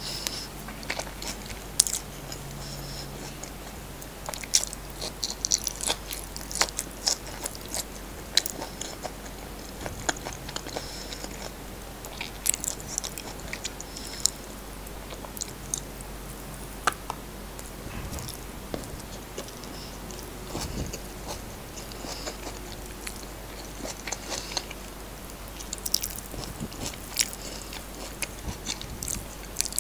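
Close-miked eating sounds: chewing and wet mouth smacks on a mouthful of fried rice and salted egg eaten by hand, with scattered sharp clicks and crackles.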